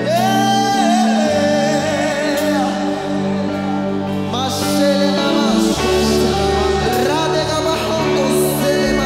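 Live gospel worship music: a lead singer's voice over a band of keyboard, bass guitar and drums. The bass gets deeper and fuller about five and a half seconds in.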